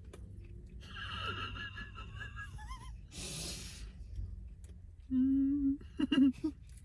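A person reacting to the burn of very spicy food: a high, wavering whimper that dips at the end, then a short, sharp hissing breath, and a few seconds later a steady hummed "mmm".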